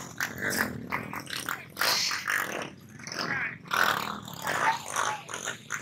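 Small motorcycle engines revving in irregular bursts, rising and falling every second or so.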